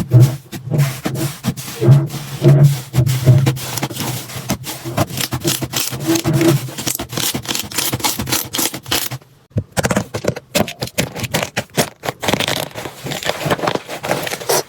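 Slime being squished and worked by hand: a dense run of sticky clicks and pops, with deeper squelchy pops in the first half. After a short pause about two thirds of the way through, a brighter, crackly stretch follows.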